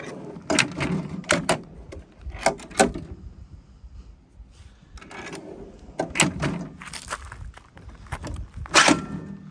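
Aluminium slide-out drawer of a truck toolbox being worked on its runners: groups of sharp metal clacks and rattles, the loudest near the end with a brief ring.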